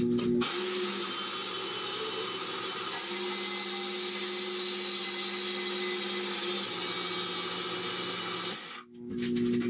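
Portable band saw running and cutting through square steel tubing, a steady whine and rasp that starts abruptly about half a second in and stops abruptly near the end.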